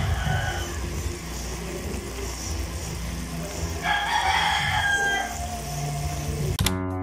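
A rooster crowing twice, once at the start and again about four seconds in, each crow lasting about a second and a half. Music begins just before the end.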